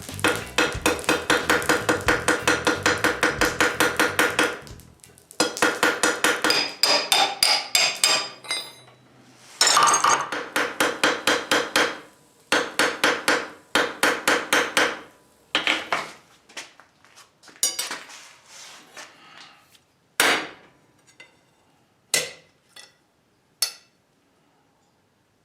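Blacksmith's hammer striking steel on an anvil, forging by hand: quick runs of blows about four or five a second, each with a metallic ring. The runs break off, and later come a few single, spaced blows.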